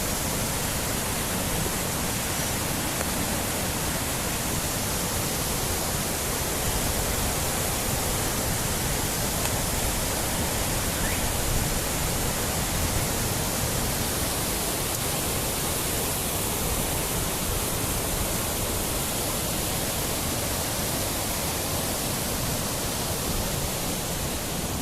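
Steady rushing of river water, an even hiss and roar without breaks.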